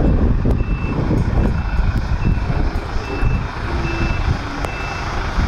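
A truck's reversing alarm beeping steadily, a short high beep a little under every second, over a loud low rumble of heavy-vehicle and road noise.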